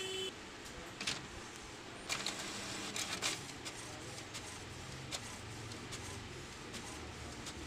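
HP Ink Tank 316 inkjet printer running a copy job: the mechanism whirs as the page is fed through, with sharp clicks about one, two and three seconds in.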